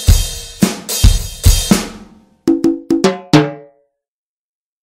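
Korg Pa700 arranger keyboard's drum kit sounds played from the keys: a string of sharp drum hits with deep bass thuds. After a short gap comes a quick fill of five pitched drum hits, each lower than the last, like a tom run.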